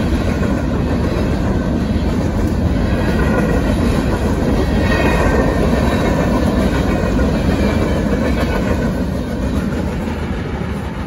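Freight train of covered hopper cars rolling past close by: a steady rumble with wheels clattering over the rails, easing off near the end as the last cars pull away.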